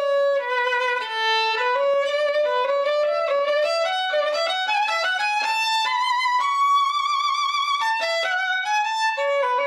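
Solo violin playing a slow melody with vibrato, climbing to a held high note about two thirds of the way through and then coming back down.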